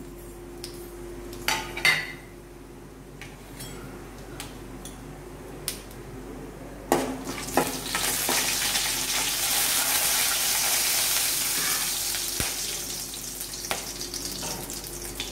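Whole spices frying in hot oil in an aluminium kadai while being stirred with a slotted steel ladle. A few light metal clinks first, then from about seven seconds in the oil sizzles strongly, easing off near the end.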